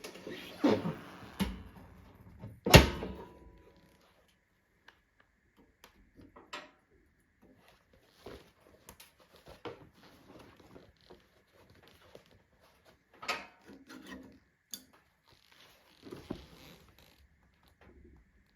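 Wood-burning stove giving off scattered knocks and clicks, the loudest about three seconds in, with quieter taps and crackles through the rest.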